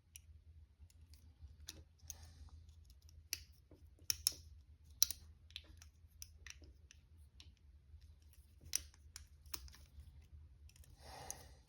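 Lock picks working inside a handcuff keyhole: faint, irregular small metal clicks and ticks, a few of them sharper, over a low steady hum, with a brief soft hiss near the end.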